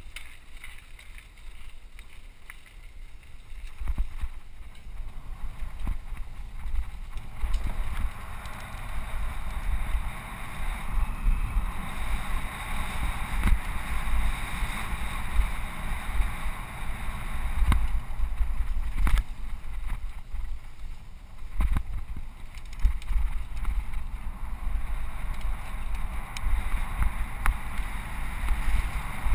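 Wind buffeting a helmet-mounted camera's microphone on a mountain bike riding fast, with the hiss of tyres rolling over gravel, grass and dirt trail and scattered sharp knocks from bumps. It gets louder about four seconds in and again near eight seconds as the bike picks up speed.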